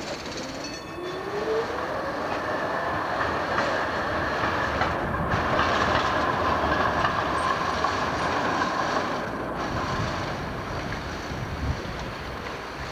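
Articulated Amsterdam tram passing close by on rails, with a rising whine as it moves off. Then its wheels squeal steadily on the curve for several seconds over the running rumble, and the squeal fades near the end.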